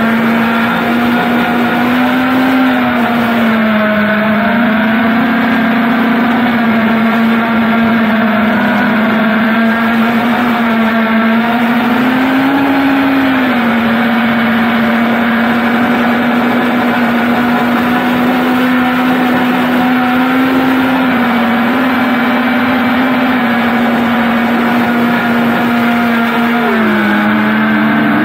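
FPV quadcopter's motors and propellers whining steadily in cruising flight. The pitch rises briefly a couple of times with throttle and drops near the end.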